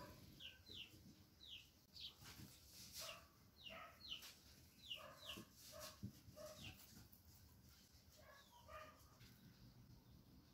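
Faint, repeated short animal calls, each a quick falling chirp, coming every half second or so with gaps.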